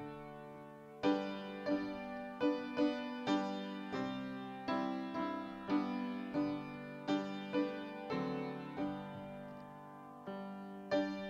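Piano playing a slow, gentle piece: notes and chords struck and left to ring and die away, about one or two a second, with a brief lull near the end.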